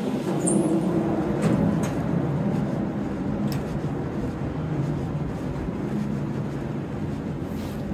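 Steady low mechanical rumble, with a few faint clicks about one to three and a half seconds in.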